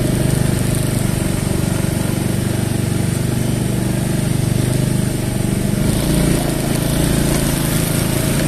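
Single-cylinder Yamaha Mio Gravis 125 scooter engine running steadily under way, heard from the rider's seat; its note shifts about six seconds in.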